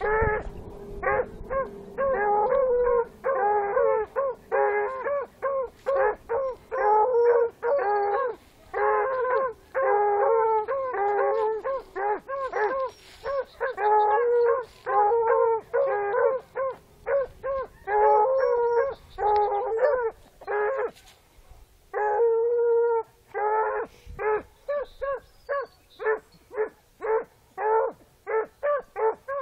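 Young hound pups baying over and over, a steady run of short bawling barks several times a second, the way hounds give mouth while running a scent trail. There is one brief pause about two-thirds of the way through.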